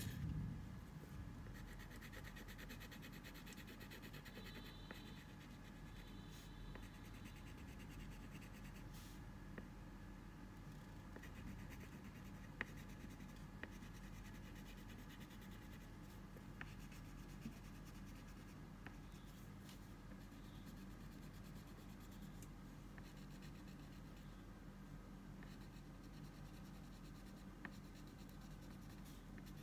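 Faint scratching of a pastel crayon rubbed on drawing paper while colouring in, with a few light ticks. A brief knock comes right at the start as a crayon is taken from the tray.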